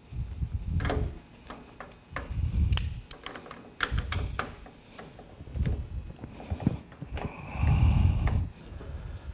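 New brake shoes and their return springs clicking, clinking and scraping against each other and the aluminium brake panel as they are stretched and worked onto the pivot posts of a Kawasaki KLX110 front drum brake. Irregular light metal clicks come with dull knocks and rubbing from handling on the workbench.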